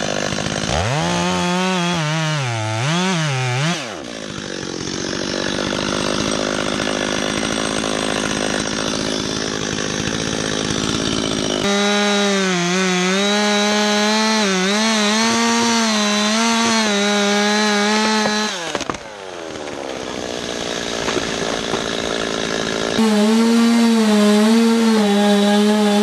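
Stihl MS 201T top-handle two-stroke chainsaw at high revs cutting through a large limb, its pitch wavering and dipping as the chain bites. The engine note drops away briefly about two-thirds of the way through, then runs high again.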